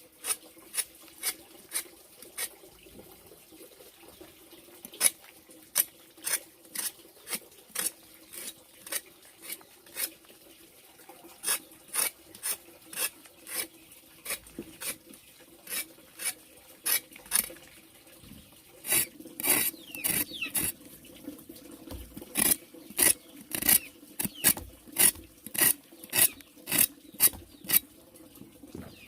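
Repeated short scraping or cutting strokes of a hand tool, about one to two a second, louder and quicker in the last third.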